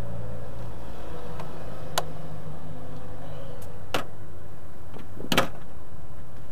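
A few sharp clicks and taps of a screwdriver and small hand tools against the throttle body and TPS mounting screws, with a double click the loudest, over a steady low hum.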